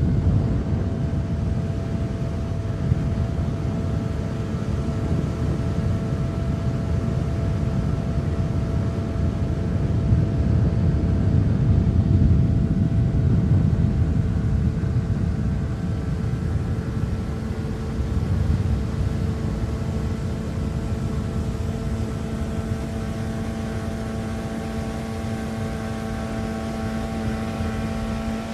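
Motorboat engine running steadily: a low rumble with a steady hum over it, and a deeper hum joining a little past the halfway point.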